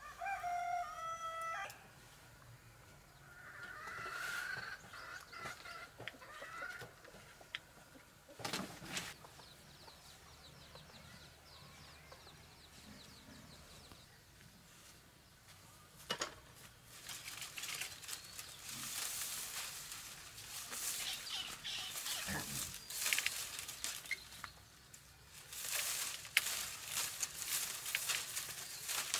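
A rooster crowing at the very start, followed a few seconds later by a wavering chicken call. From about halfway through, a long stretch of dry rustling and crackling with many sharp snaps.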